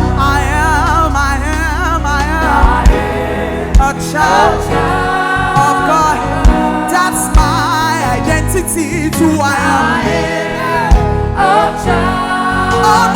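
Gospel worship music: a vocalist sings a wordless, melismatic line with heavy vibrato over a live band with bass and drums.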